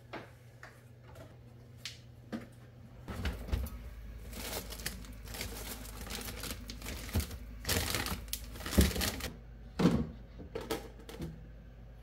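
Plastic produce bags crinkling and rustling as they are handled in a refrigerator's crisper drawer, among clicks and knocks of the drawer and plastic containers, with two sharper knocks near the end.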